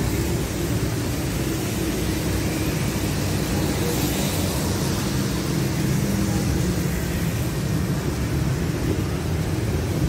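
Steady road traffic: motorcycles and cars passing on a wet road, with tyre hiss over a low rumble.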